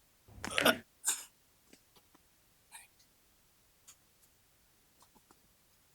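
Handling noise from a chiropractic pelvis adjustment: a short rustling thump about half a second in, a sharper sound just after, then a few faint clicks.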